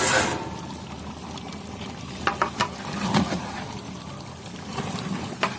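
A large pot of chicken curry cooking, a wet bubbling and sizzling sound, with a brief rush of noise at the start and a few sharp clicks about two to three seconds in and again near the end.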